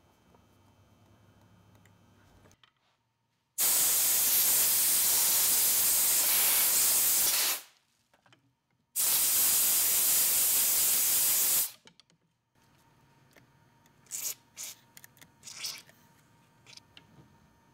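Two long sprays hissing, the first about four seconds and the second about three, as a CNC ball screw nut is blown or sprayed clean of chips. A few sharp clicks follow near the end.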